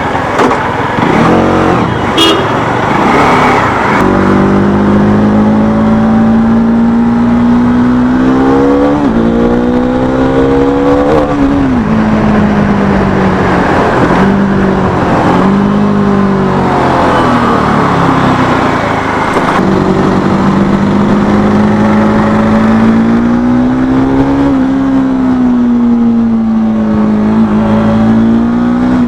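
Bajaj Dominar 400's single-cylinder engine through a Leo Vince Cobra aftermarket exhaust, under way: the note climbs with the throttle and drops at gear changes about eight to twelve seconds in, holds steady at cruise, then rises and falls again about three quarters of the way through.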